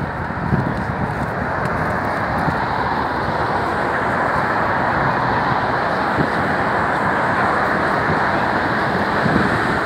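Steady rumble of motor vehicle and traffic noise, with no single sound standing out.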